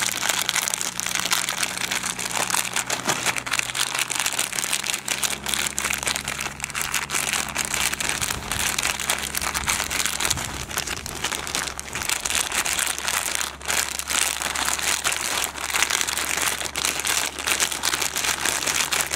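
Plastic food bag crinkling continuously as a handful of lead airgun pellets is rolled and kneaded inside it, with the pellets shifting against each other: spreading the lubricant into a thin, even coating.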